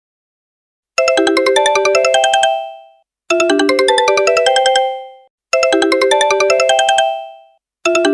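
Sony phone's stock ringtone: a short melodic phrase of quick, bright notes that repeats about every two and a half seconds, starting about a second in.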